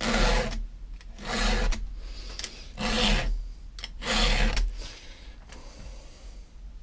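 A cloth rag rubbed over the hands in four strokes about a second and a half apart, then a fainter fifth.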